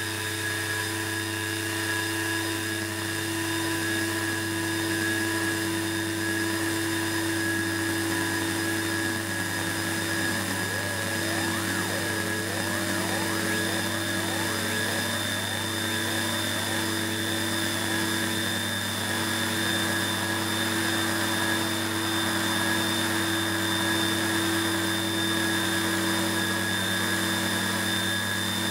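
Experimental electronic noise made on analog machines: a steady low hum and hiss under several held tones. Wobbling tones slide up and down from about ten seconds in.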